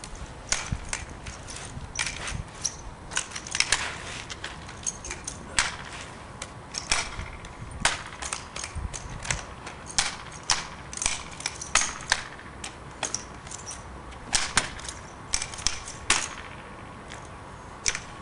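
Irregular sharp clacks and slaps of hands catching and striking a drill rifle during a spinning routine, several a second at times, with a few louder snaps.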